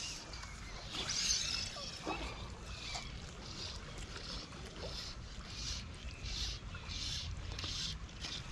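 Fly line being stripped in through the rod guides in short pulls: a regular series of brief hissing swishes about every two-thirds of a second, with a louder swish about a second in, over a low wind rumble.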